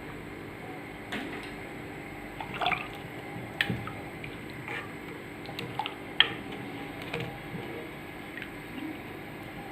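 Faint, scattered light clicks and drips from a pot of rice and water as salt is added, over a low steady hum.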